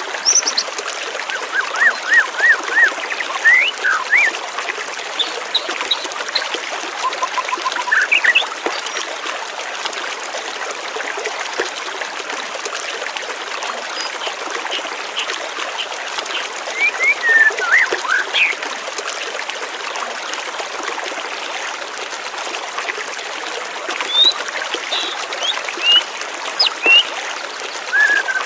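Flowing stream water trickling steadily, with small birds chirping in short scattered bursts of quick, high chirps.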